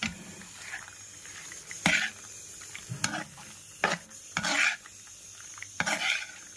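A spatula stirring thick white-sauce penne in a pan: about six separate scrapes and knocks against the pan, a second or so apart.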